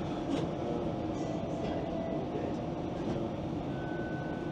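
A TTC Flexity Outlook low-floor streetcar running along its track, heard from inside the car: steady rolling noise with a held motor hum and a few light clicks, and a higher tone coming in near the end.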